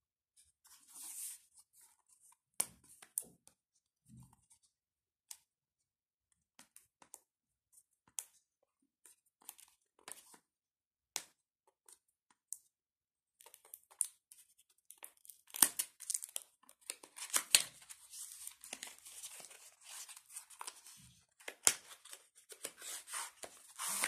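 A power bank's cardboard box and wrapping being opened by hand: scattered clicks and rustles, then from about halfway in a denser, louder run of tearing and crinkling.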